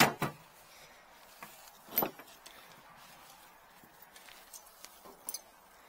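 Hand tools being picked up and handled, giving a few sharp clinks and knocks: two together at the start and a louder one about two seconds in, then a few faint ticks.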